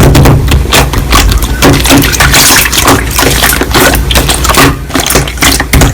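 Slime being squeezed and pressed by hand: a dense run of wet clicks, crackles and pops, over a steady low hum.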